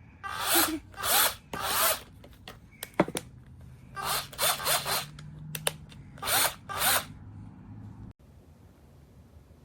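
Cordless drill run in short trigger bursts, about eight quick whirs in groups, with a sharp click about three seconds in.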